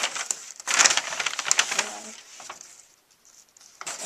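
White plastic mailer envelope crinkling and rustling as it is shaken and handled, a dense crackle loudest about a second in, then fading to softer rustles.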